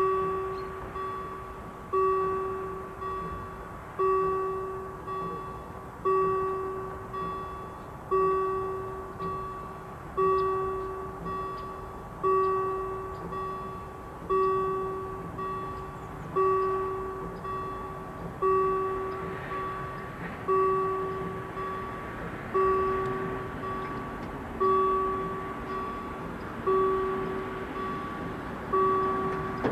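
Level crossing warning bell striking slowly and evenly, about once every two seconds, each stroke ringing out and fading before the next, as the crossing closes for an approaching train.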